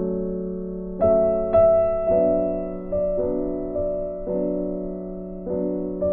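Background music: a soft piano or electric-piano melody with chords, a new note every half second or so.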